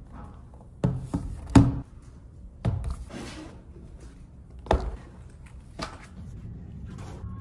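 A laptop and other belongings being set down and handled on a table: several separate thunks and knocks, with a short rustle about three seconds in.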